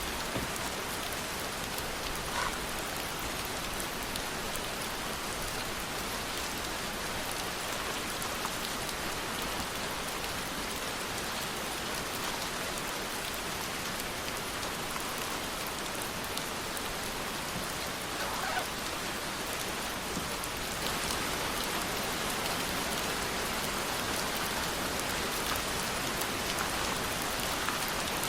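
Steady rain falling, growing a little heavier about three-quarters of the way through.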